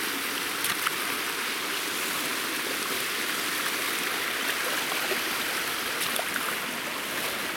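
Shallow water rushing steadily through a concrete spillway channel, with a few faint splashes of rubber boots wading through it.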